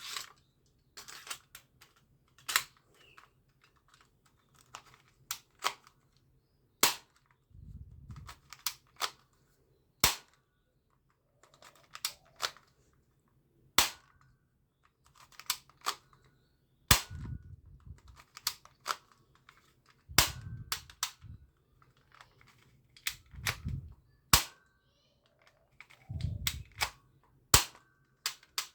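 Toy gun being fired over and over: sharp single cracks at irregular intervals, roughly one a second, with a few duller low thuds in between.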